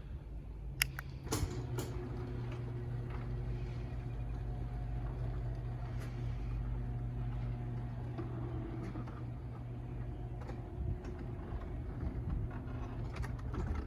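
Electric garage door opener running a door through its travel: a few sharp clicks about a second in as it starts, then a steady motor hum, and more clicks near the end as it stops.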